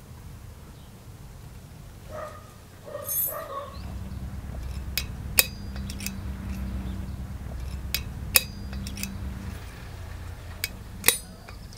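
Sharp metallic clicks of a steel center punch marking a brass strip on a steel block, mostly in pairs about half a second apart, with a short ring after each. A brief animal call is heard about two to three seconds in.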